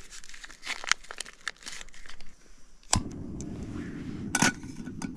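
Foil MRE pouch crinkling as its contents are squeezed out into a pot. About three seconds in, a backpacking canister stove (Pocket Rocket) lights and burns with a steady hiss, with one sharp click a little after.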